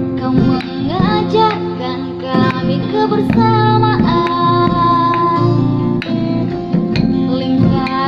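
Indonesian pop ballad: a singer sings over acoustic guitar with light percussion, holding one long note about halfway through.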